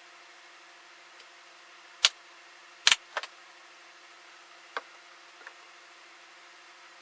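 A few short, sharp knocks, the loudest about three seconds in, with two more soon after and a lighter one near the end, over a faint steady hum.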